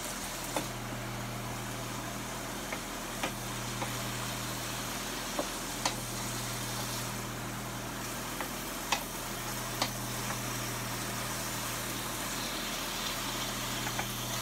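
Green beans sizzling in a stainless steel skillet while a wooden spatula stirs them, knocking sharply against the pan about a dozen times at uneven intervals, over a steady low hum.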